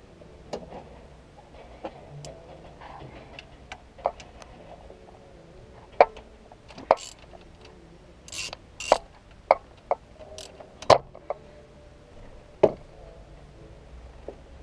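Ratchet wrench and socket working a bolt on an engine: irregular sharp metallic clicks and knocks of tool on metal, a brief scrape, the loudest clicks between about six and thirteen seconds in.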